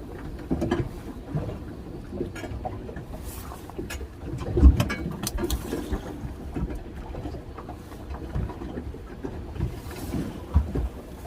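Wind and water noise around a small fishing boat, with scattered knocks and handling thumps; the loudest thump comes a little before halfway, and another near the end.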